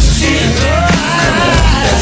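Hip-hop song playing, with a deep bass line and a sung vocal line over it.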